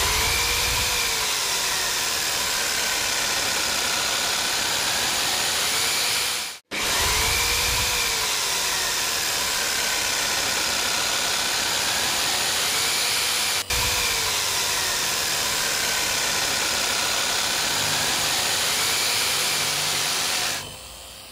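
Craftsman variable-speed orbital jigsaw running as it cuts through a composite deck board, a steady loud buzz of the reciprocating blade with a whine that rises and falls in pitch every few seconds. The sound breaks off for an instant twice and the saw stops near the end.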